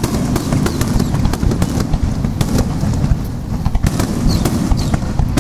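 Aerial fireworks in a rapid-fire starmine barrage: many sharp bangs and crackles in quick succession over a continuous low rumble of shell bursts.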